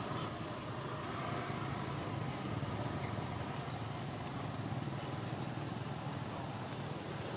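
A steady low background rumble with no clear start or stop and no animal calls.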